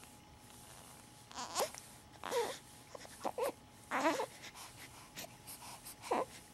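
A sleeping baby giving a series of brief, pitched whimpers, about five spread over a few seconds.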